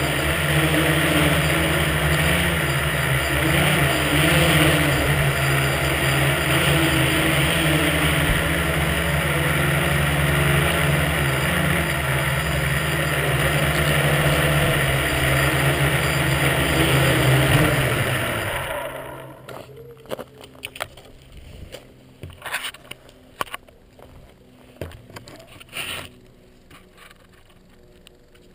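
Tricopter's three electric motors and propellers buzzing steadily with a low hum close to the camera, then stopping about two-thirds of the way through. Afterwards come scattered knocks and clicks of the craft being handled.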